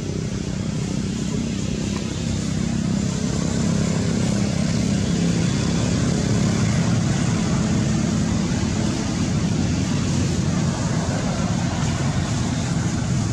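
Steady low rumble of outdoor background noise with a hiss above it, swelling slightly a few seconds in and then holding.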